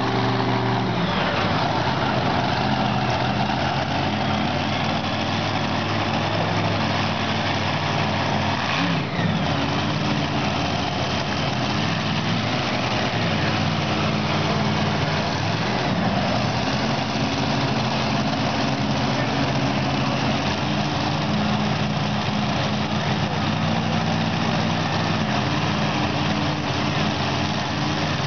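Pulling tractor's diesel engine running loud and hard under load, its pitch dipping and climbing back a few times.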